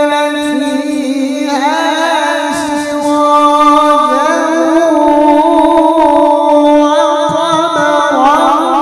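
A man's voice in Qur'anic tilawah, amplified through a handheld microphone, holding one long unbroken melismatic note with quick wavering ornaments that climb and fall in pitch.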